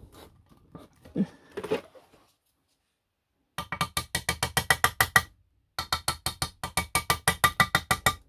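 Hammer tapping rapidly on a socket held against the ball bearing in an aluminium scooter crankcase's bearing seat: two runs of sharp, ringing metal-on-metal taps, about five or six a second, with a short pause between them.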